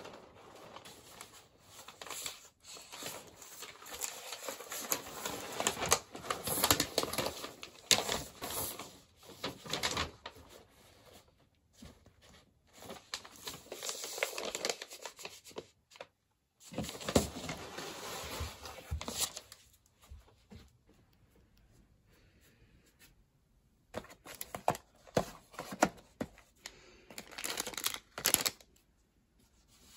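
Paper sheets and plastic packaging being handled and rustled, in stop-start bursts with many sharp taps and clicks and a few quiet pauses.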